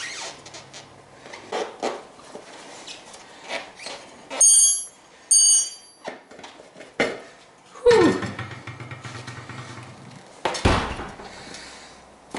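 Hand tire-changing work on a motorcycle wheel: scattered metal clinks and knocks of tire irons. There are two short, high-pitched squeaks about four and a half and five and a half seconds in, and a heavy thump shortly before the end.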